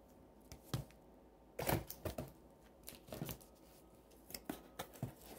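Topps Stadium Club trading cards and their small cardboard box being handled: irregular light clicks, taps and rustles, several across a few seconds.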